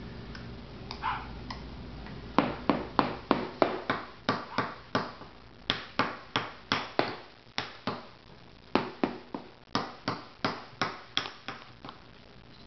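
A metal fork tapping repeatedly on a metal baking tray: sharp, uneven taps about two to three a second, starting a couple of seconds in, pausing briefly near the middle, and stopping shortly before the end.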